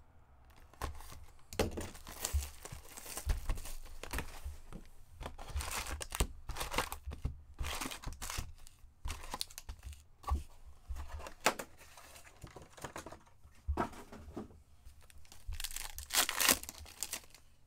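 Plastic wrapping and the wrappers of Upper Deck Series Two hockey card packs being torn open and crinkled by hand. It comes as a series of irregular ripping and rustling strokes, loudest near the end.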